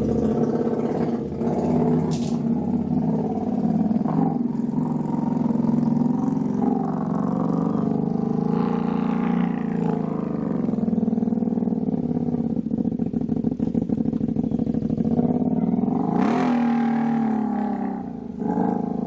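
Can-Am side-by-side engine running at a steady speed, then revving up with a rising pitch about three-quarters of the way through.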